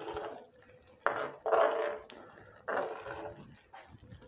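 A spoon stirring rice and broth in a clay pot, in about four wet strokes with short pauses between.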